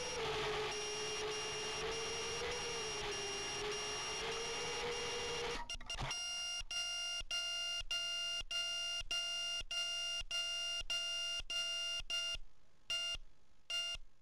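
FPV quadcopter's motors whining at a steady pitch, then cutting off about five and a half seconds in as the quad is disarmed on the ground. Its onboard buzzer then beeps over and over, about twice a second, a low-battery warning, with the beeps spacing out near the end.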